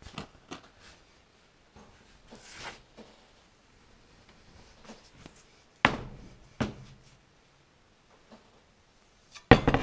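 Hard knocks and thunks as a homemade cutlass bearing is worked along a steel shaft on a wooden bench. There is a short scraping slide about two and a half seconds in, and the loudest knocks come about six seconds in and near the end.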